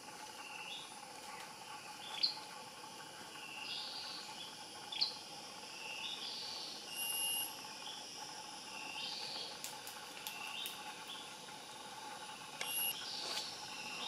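Tropical rainforest ambience: a steady insect drone with short bird calls repeating every second or so, and two sharper, louder notes about two and five seconds in.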